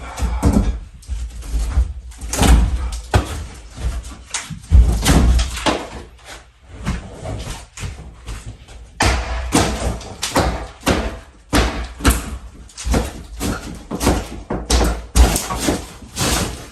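Irregular knocks and bangs of interior demolition work in a mobile home, the blows coming faster in the second half.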